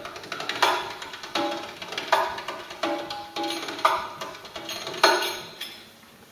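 Riq, the Arabic frame tambourine with pairs of brass jingles, played solo. Fast light finger taps with jingle shimmer run between heavier strokes on the head that ring with a short pitched tone. The playing dies away to a brief lull near the end.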